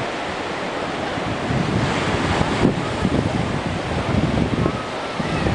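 Light ocean surf washing up the beach, a steady rushing hiss, with wind buffeting the microphone in gusts.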